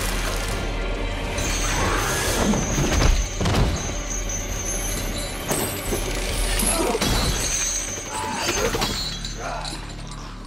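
Dramatic film score with heavy iron chains rattling and clanking, broken by several sharp metallic crashes.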